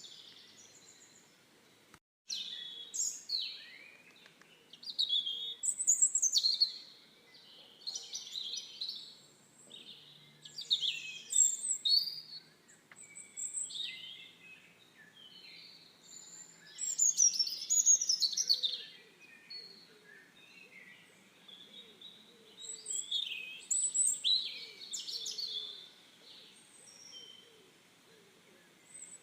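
Songbirds singing: phrases of high chirping, warbling song come every second or two, often overlapping, with short pauses between.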